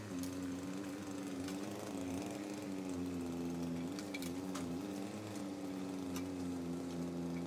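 Diesel engine of compact earthmoving equipment running steadily, its pitch dipping briefly a few times, with scattered sharp clicks and knocks.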